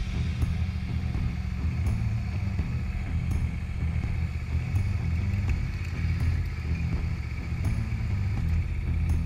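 ATV engine running at varying throttle as the quad is driven through deep mud, a low, uneven rumble.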